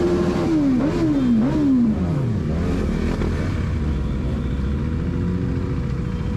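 A motorcycle engine revving: it is held high for a moment, blipped up twice more, then drops back to a steady low idle rumble.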